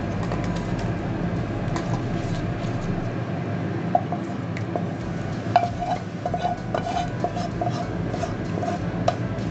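Thick chicken curry being scraped out of a pan into an aluminium pot with a spatula: wet sliding and squelching, with a few sharp metal clinks of utensil on pan about four, five and a half and nine seconds in, over a steady low background noise.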